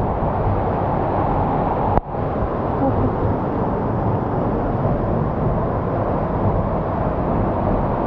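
Steady low rumbling noise, with a sudden brief dip about two seconds in.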